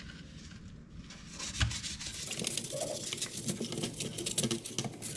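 Scrubbing with an old toothbrush: fast, scratchy back-and-forth strokes that start about a second and a half in, just after a single knock.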